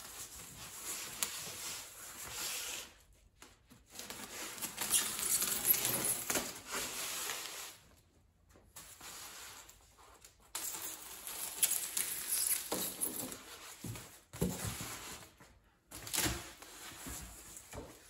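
Utility knife blade drawn through foil-faced rigid foam insulation board, a scratchy cutting sound in several long strokes of a few seconds each, with short pauses between.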